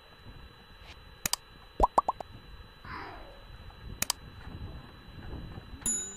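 Subscribe-button animation sound effects over faint background noise: three quick rising bloops about two seconds in, a double mouse click about four seconds in, and a short high bell chime near the end.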